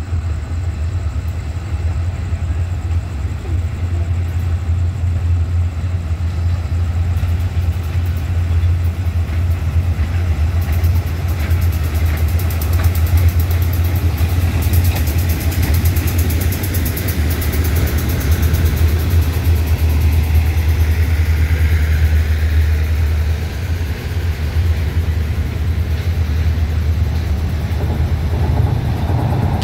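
Diesel-electric locomotive (SRT GE No. 4025) running at low speed as it approaches and passes close by, its engine a steady low drone. A high hiss joins it in the middle, and the rolling stock's wheel noise fills in near the end as the coach and flatcars go by.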